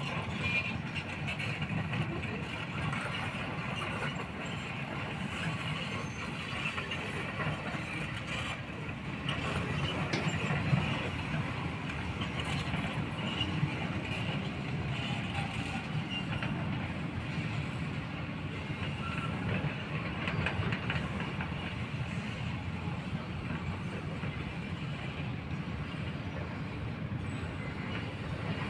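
Diesel engine of a hydraulic excavator running steadily under load while it digs, a low rumble with a few faint knocks.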